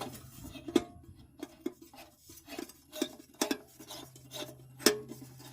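Irregular clicks, taps and light metallic clinks from hands handling the 100 W high-pressure sodium floodlight fixture and its lamp, over a faint steady low hum.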